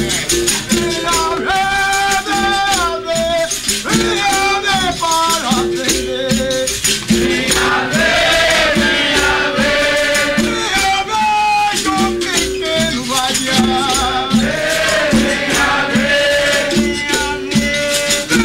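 Capoeira roda music played live: berimbaus with their caxixi rattles, pandeiros and an atabaque keeping a steady rhythm, with voices singing over it.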